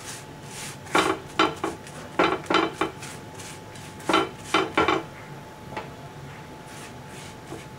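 A silicone basting brush with a metal handle clinks and knocks against a nonstick pan while oil is brushed over a chapati: three short clusters of sharp clatter, about a second in, past two seconds, and past four seconds.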